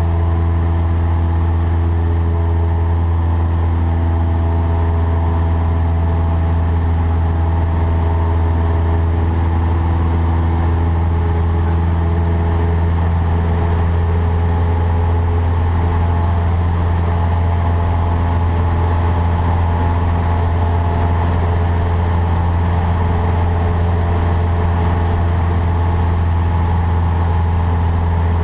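Cessna 152's four-cylinder Lycoming piston engine and propeller running steadily at power, a loud constant drone heard from inside the cockpit.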